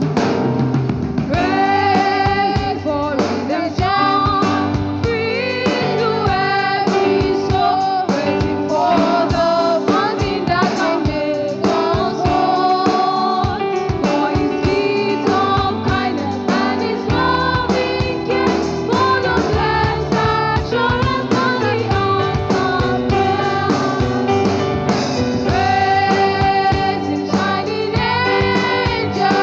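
Live worship music: singing over keyboard, guitar and drum kit, at a steady beat.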